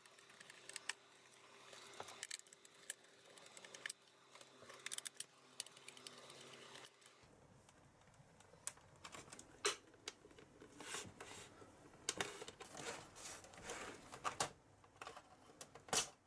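Small sharp plastic clicks and taps from a Fujitsu LIFEBOOK A573/GX laptop's case being taken apart by hand. Over the second half, the plastic hinge cover strip above the keyboard is pried up and its clips snap loose, with louder clicks about ten seconds in and just before the end.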